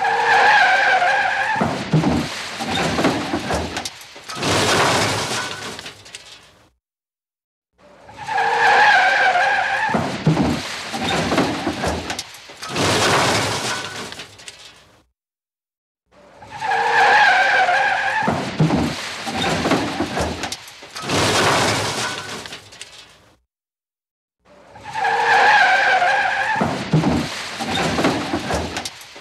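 Car tyres screeching briefly at two steady pitches, then a crash with shattering glass lasting several seconds. The same skid-and-crash repeats four times, about every eight seconds, with a second of silence between.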